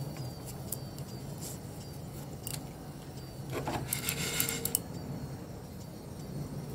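Whole spices (coriander, fennel, fenugreek, black peppercorns and dried red chillies) being dry-roasted in a non-stick pan, rattling and scraping as they are turned over, with scattered small ticks and a busier patch of scraping a little past halfway.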